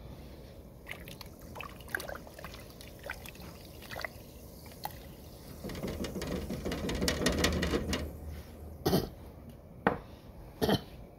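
Pot of water with lemon slices bubbling as a spatula stirs it, with scattered small ticks and then a swell of bubbling and sloshing in the middle. Three sharp knocks near the end.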